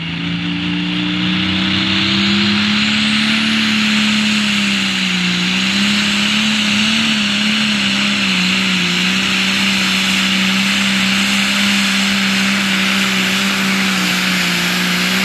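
Turbocharged diesel super stock pulling tractor at full throttle under load, dragging a weight-transfer sled: a loud, steady engine drone whose pitch sags briefly about five seconds in, then holds to the end.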